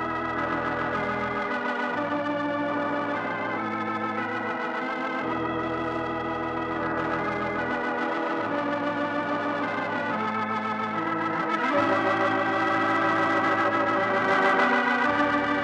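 Organ music: sustained, wavering chords that change every second or two, with deep bass notes dropping out and coming back in; it swells louder about twelve seconds in.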